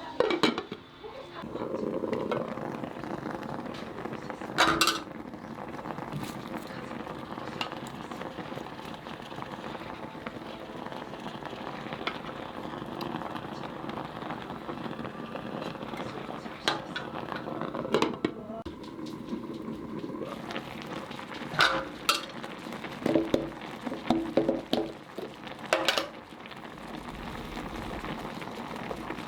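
Food sizzling and bubbling steadily in a pan, with a metal utensil clinking against the pan now and then, several times in the second half.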